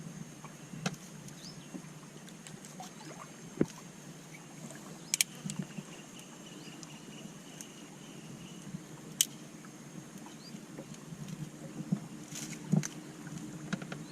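Scattered knocks and clicks from a small fishing boat on a river as a gill net is hauled and cleared by hand, with light water sounds and a steady high insect hum behind.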